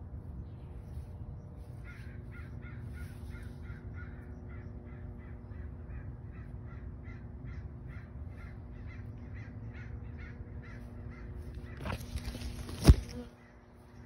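An animal call, like a bird's caw, repeated about three times a second for several seconds over a steady low hum, then a loud knock near the end.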